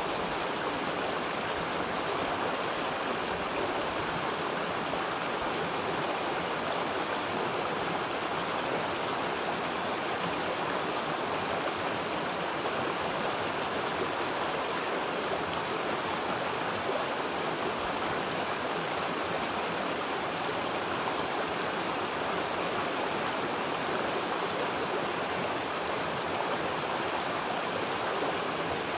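Running water rushing steadily and evenly, with no pauses or changes.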